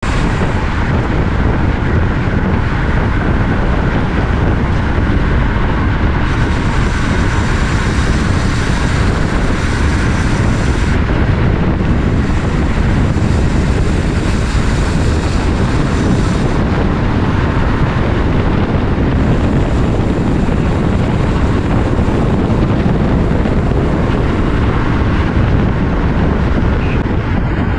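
Wind rushing hard over the microphone of a camera on a racing bicycle descending at around 40 to 50 mph. It makes a loud, steady rush with a deep rumble, and the hiss grows and fades several times as the speed and the angle into the wind change.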